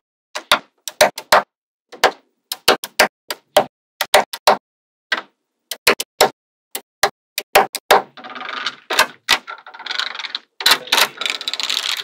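Magnetic balls clicking sharply as they snap together, in quick irregular clicks. About eight seconds in, the clicking turns into a denser, continuous rattle.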